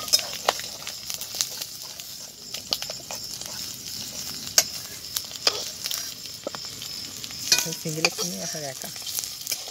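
Hot oil sizzling steadily in woks over wood fires, with boiled eggs frying, and irregular sharp clinks of a metal spatula against the pan and plate.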